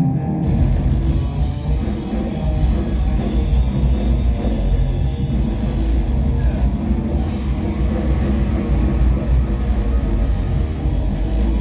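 Post-hardcore band playing live: electric guitars, bass guitar and a drum kit, loud and dense, with a heavy low end that comes in under a second in.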